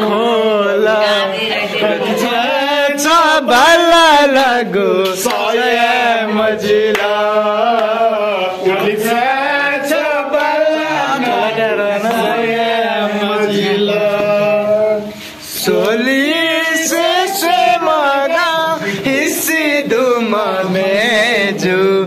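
Singing: a voice with a wavering, chant-like melody over a steady held low note, breaking off briefly about fifteen seconds in before going on.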